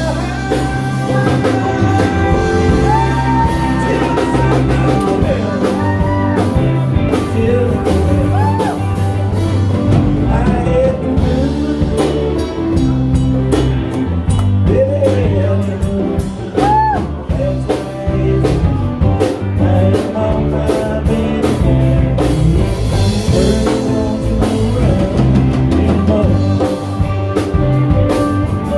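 A live rock band playing: a drum kit and bass under a lead line of bent, sliding notes.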